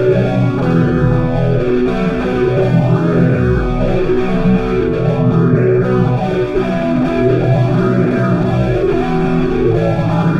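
Instrumental rock music with guitar and bass guitar playing steadily, with low notes sliding down in pitch about three times.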